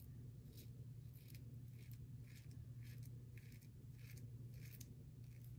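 Bevel safety razor scraping through about three and a half days of stubble on a lathered neck in short, quick strokes, about two a second, faint, over a steady low hum.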